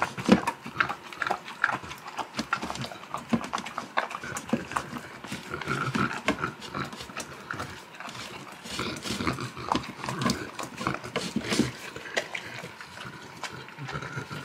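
Saint Bernard eating raw meat from a stainless steel bowl: irregular wet chewing, smacking and slurping, with frequent small clicks of teeth and tongue against the metal bowl.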